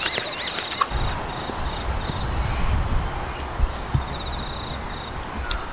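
Outdoor ambience: short high chirping calls in the first second, then a high, rapidly pulsing trill heard twice, over a low rumble on the microphone that begins about a second in.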